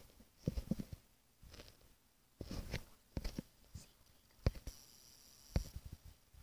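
Faint, scattered soft knocks and clicks, about a dozen, with a brief hiss about five seconds in: handling noise from a phone held close and shifted around.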